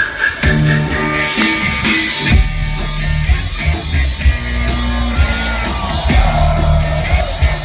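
Loud music with a heavy bass line moving in a steady beat.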